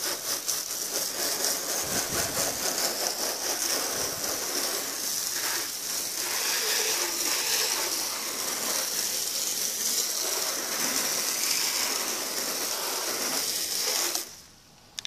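Water jetting from a garden hose spray nozzle onto a pickup truck's door and side panels: a steady hissing spray with splatter off the bodywork, rinsing off car-wash soap. It cuts off sharply near the end.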